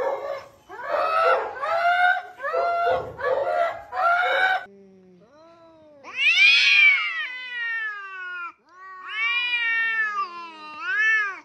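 Two cats yowling at each other in a standoff: long caterwauls that rise and fall in pitch, starting about five seconds in, the loudest wail peaking around six to seven seconds and another long one near the end.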